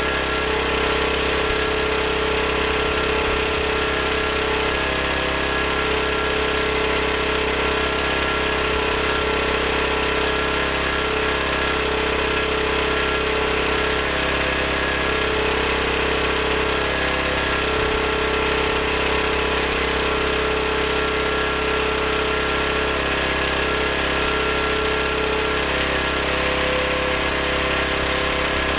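Portable generator's small gasoline engine running steadily at governed speed with no load on it, fuelled on gasoline alone.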